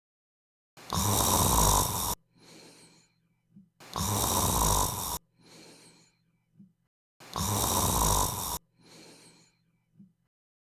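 A person snoring: three loud snores about three seconds apart, each followed by a quieter breath.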